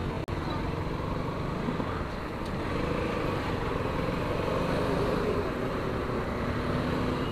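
Motorcycle being ridden through city traffic: steady engine and road noise, with the surrounding traffic around it.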